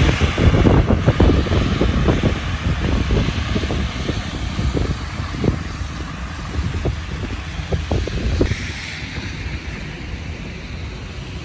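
Wind buffeting the microphone in gusts, over the sound of cars driving along a snow-covered road; the buffeting eases in the second half.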